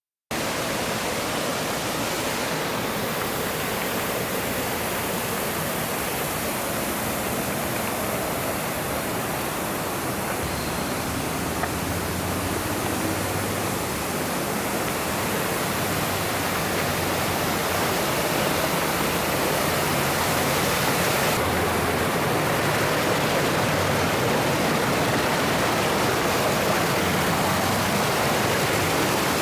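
Mountain stream water rushing over rocks, a steady full rush that starts abruptly right at the beginning and swells slightly louder past the middle.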